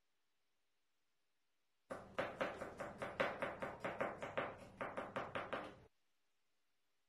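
Kitchen knife chopping carrot on a cutting board: a quick, even run of knife strikes, about five a second, starting about two seconds in and stopping about a second before the end.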